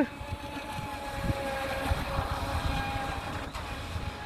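Electric motor of a radio-controlled Aquaholic speedboat whining steadily as the boat runs across the water at speed, over a low rumble of wind on the microphone.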